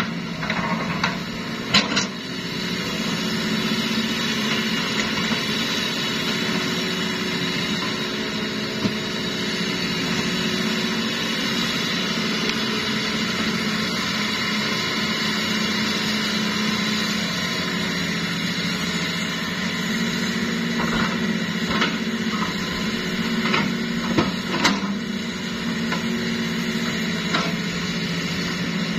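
Hitachi hydraulic excavator's diesel engine running steadily under working load as it digs and swings, with a steady mechanical hum. A few short sharp knocks come about two seconds in and again a few seconds before the end.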